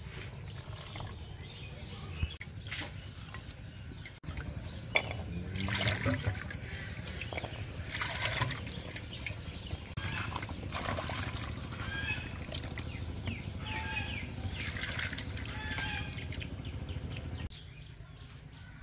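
Water splashing, pouring and trickling in irregular bursts as beef tripe is washed in water, over a steady low hum that stops near the end.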